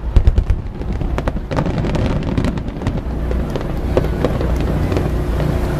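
Aerial fireworks bursting overhead: a dense run of sharp crackling pops in the first second or so, then scattered pops over a continuous low rumble.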